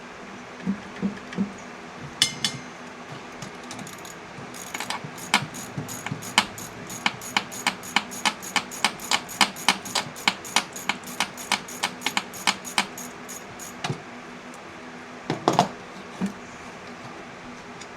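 Hand ratchet clicking in a steady run of about four clicks a second, backing out bolts while the intake manifold is taken apart. A few loose metal knocks come before and after the run, over a steady low hum.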